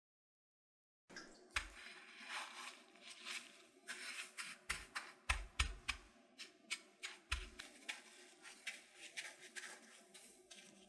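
Food-preparation handling sounds: a quick run of sharp clicks and knocks, a few with heavier thumps, over a steady low hum. It starts about a second in, after a brief dead silence.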